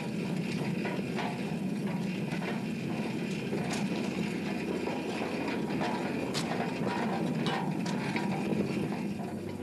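Railway wagon rolling along the track: a steady low running noise with a few sharp clicks from the wheels on the rails.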